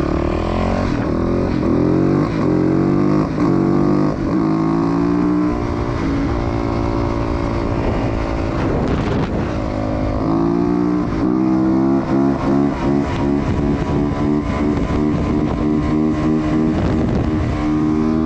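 Yamaha YZ450F single-cylinder four-stroke motocross engine under hard acceleration, revving up through the gears with a drop in revs at each upshift. About halfway through the revs fall away as the throttle eases, then it pulls up through the gears again.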